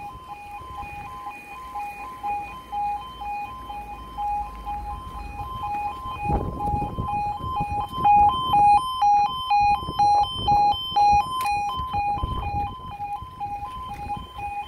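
Level crossing audible alarm sounding a rapid two-tone electronic warble as the crossing's warning sequence begins with the amber road light. It gets louder and busier about eight seconds in.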